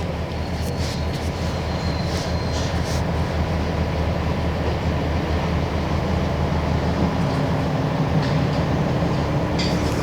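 Mercedes-Benz OF-1721 bus's OM-366LA six-cylinder turbo diesel running with a steady low drone. A few light rattles come in the first few seconds, and the engine note rises a little near the end.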